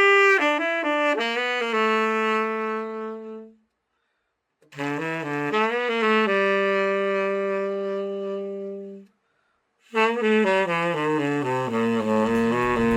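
Tenor saxophone, the overhauled Yamaha YTS-62, playing three short phrases separated by brief pauses. Each phrase steps down through several notes and ends on a long held note; the third begins about ten seconds in.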